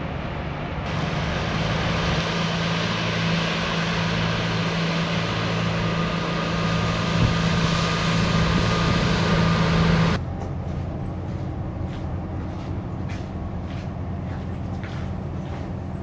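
Diesel work boat's engine drone with propeller wash as a tug-towed barge passes close by; steady and fairly loud. It cuts off suddenly about ten seconds in, leaving a quieter low engine rumble.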